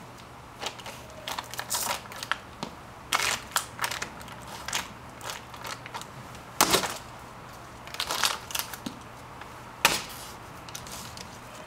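An empty plastic water bottle being stomped and crushed under black motorcycle patrol boots on a concrete step: a string of crunches and stomps, the loudest a little past halfway and again near the end.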